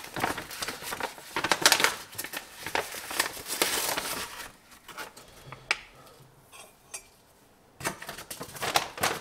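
Plastic powder pouch crinkling and rustling as it is handled and collagen powder is spooned into a ceramic mug, then a few light clicks of the spoon and mug near the end.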